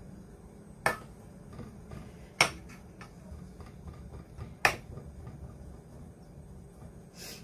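Hands spreading and pressing shredded kataifi dough into a round pan: faint crackly rustling with three sharp clicks, about one, two and a half and nearly five seconds in.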